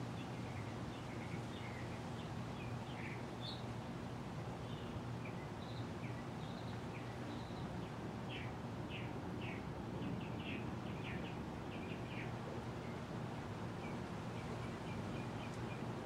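Moss Heirloom Olympus ceiling fan running steadily at its highest speed, a constant motor hum under the rush of air from the blades. Small birds chirp now and then throughout.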